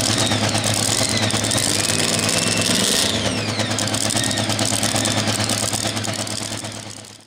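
Supercharged engine of a super modified two-wheel-drive pulling truck running loudly, its pitch falling about three seconds in. The sound fades out near the end.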